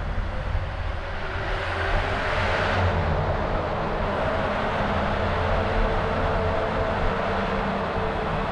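Steady road and engine noise of a Honda CR-V driving through city traffic, with a rush of noise that swells and fades about two to three seconds in.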